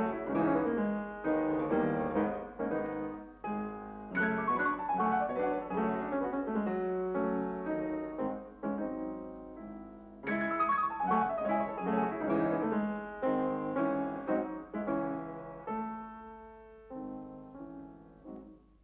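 Solo piano music: phrases of struck notes and chords that ring and die away, a new phrase beginning about four seconds in and again about ten seconds in. It grows softer and fades out near the end.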